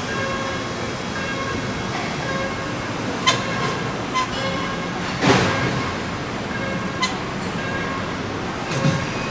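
Car assembly plant floor heard from a moving electric tour cart: a steady machinery din with short electronic warning beeps repeating, a few sharp metallic clicks, and a brief loud hiss about five seconds in.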